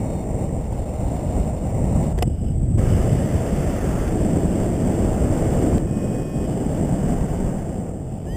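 Wind rushing over the camera microphone of a paraglider in flight: a steady, loud roar of airflow, heaviest in the low end, with no break.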